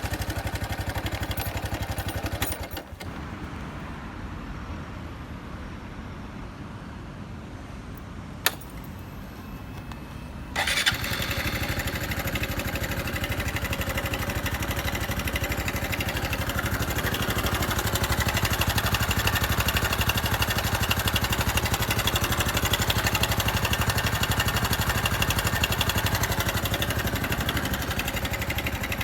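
Honda Super Cub 110 (JA44) single-cylinder four-stroke engine running, then cutting out. After a few seconds and a single click, it starts again and settles into a steady run that grows a little louder later on.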